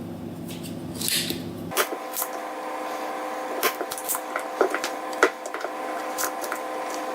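Desoldering on a circuit board with a soldering iron and a desoldering pump: a low buzz that stops about two seconds in, a short hissing rush about a second in, then a string of small clicks and taps, over a steady faint electrical hum.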